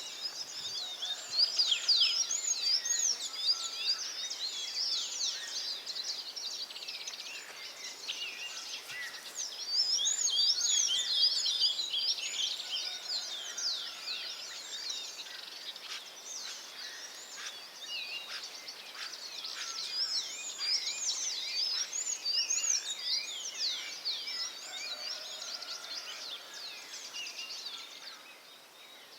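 A dense chorus of many small birds chirping and twittering, quick high chirps overlapping without a break, busiest about two and ten seconds in and thinning slightly near the end.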